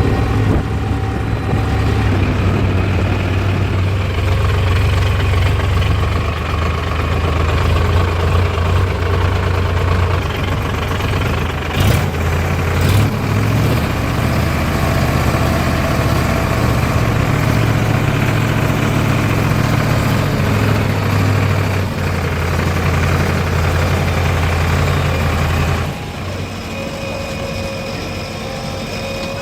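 Diesel engine of a JCB 3DX backhoe loader running hard, with a steady, loud low drone. Two short knocks come about twelve and thirteen seconds in, and the engine note falls quieter about four seconds before the end.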